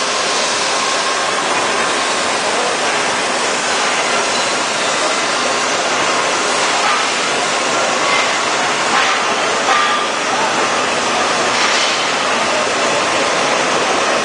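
Heller crankshaft pin-milling machine with two cutters milling two eccentric crankshaft pins at once: a steady, dense machining noise with faint steady tones running through it.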